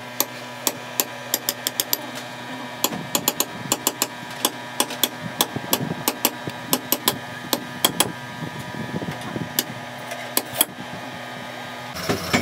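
Hand hammer striking a steel punch held against the bearing in an excavator's front wheel hub: a quick, uneven run of sharp strikes, about three a second, that stops about ten and a half seconds in.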